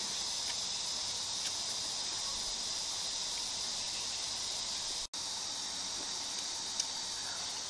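Steady high chirring of an insect chorus, an even unbroken hiss with a few faint clicks over it; the sound cuts out for an instant about five seconds in.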